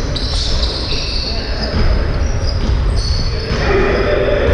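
Basketball game on an indoor court: players' sneakers squeaking on the floor in short high squeals, and the ball bouncing.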